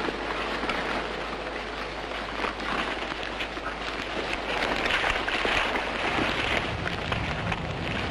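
Stormy-weather sound effect: a steady hiss of heavy rain and wind, growing louder partway through, with a low thunder rumble building near the end.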